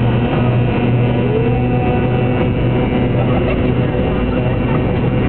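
Airliner engines running at takeoff power during the takeoff roll, heard inside the cabin: a loud, steady noise with a steady low hum.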